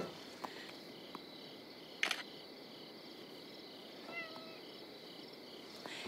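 Faint crickets chirping in an even, repeating rhythm, with a few soft clicks and a brief rustle about two seconds in.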